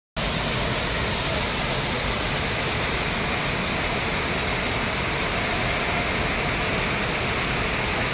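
Waterfall's steady rushing of falling water, a constant even wash of noise with no let-up.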